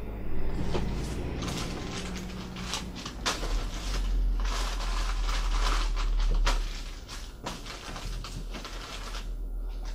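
Crumpled newspaper packing rustling and crinkling as wrapped items are pulled out of a cardboard box, with scattered small clicks and knocks; it eases off after about seven seconds. A low steady hum runs underneath.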